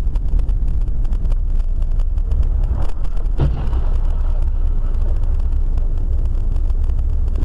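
Car driving, heard from a dashboard camera inside the cabin: a steady low road and engine rumble, with one brief thump about three and a half seconds in.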